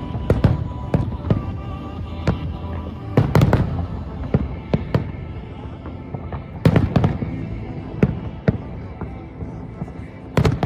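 Aerial fireworks bursting in a rapid series of sharp bangs and pops, with heavier clusters of booms about every three to four seconds. Music plays underneath.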